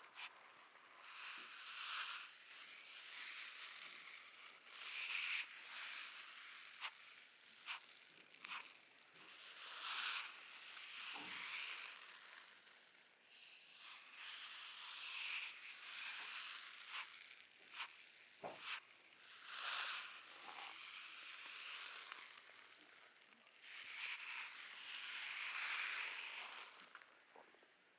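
Slow, repeated scratching and brushing strokes over hair and skin, each a soft swish that swells and fades, with a few small sharp clicks in between.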